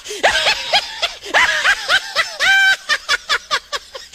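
High-pitched snickering laughter in quick rising-and-falling bursts, with one held note about two and a half seconds in, breaking into a rapid run of short clicking sounds near the end.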